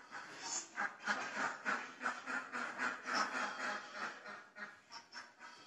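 A flock of domestic ducks quacking, many short calls overlapping in an irregular stream.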